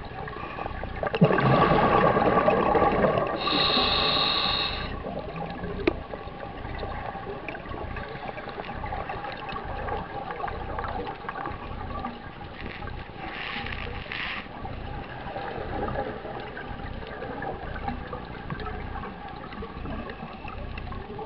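Scuba regulator breathing underwater: a loud burble of exhaled bubbles about a second in, then a hissing inhale through the regulator; a second, fainter breath, a hissing inhale followed by bubbles, comes about two-thirds of the way through.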